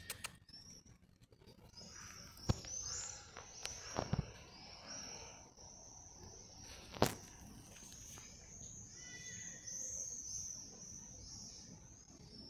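Small birds chirping and twittering steadily, with three sharp knocks about two and a half, four and seven seconds in.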